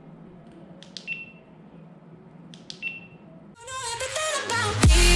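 Short high beeps over a faint steady hum, each beep just after a pair of sharp clicks, coming twice about 1.7 seconds apart. About three and a half seconds in, electronic dance music with a heavy bass comes in and swells, and the bass hits grow loud near the end.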